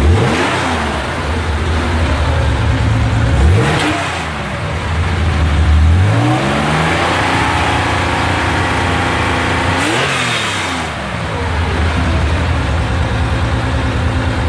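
1969 Porsche 911S's air-cooled flat-six idling and being revved. A quick blip comes at the start and another about three and a half seconds in; then a longer rev climbs from about six seconds in, is held high, and drops back to idle about ten seconds in.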